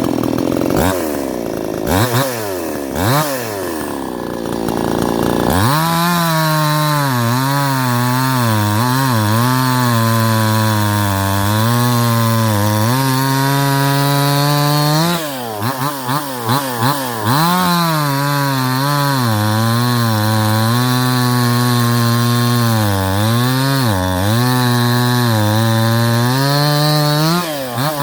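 Cheap Chinese clone of a Husqvarna 372XP two-stroke chainsaw, base gasket deleted and stock carb turned to its limit, revving up and down for a few seconds and then running under load cutting oak. The engine note wavers as the chain bites and dips briefly several times.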